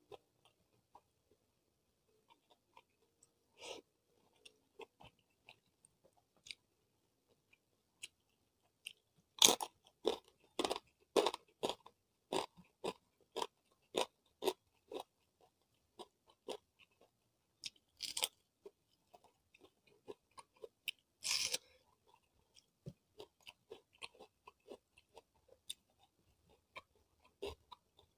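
Close-miked chewing of crisp food, soft and sparse at first. About a third of the way in comes a dense run of sharp crunches lasting several seconds, then two more loud crunches and sparser chewing.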